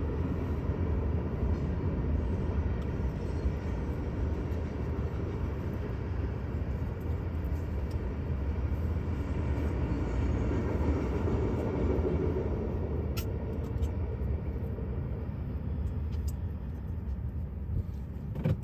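CSX coal train's hopper cars rolling past a grade crossing: a steady rumble of wheels on rail, with a sharp click near the end.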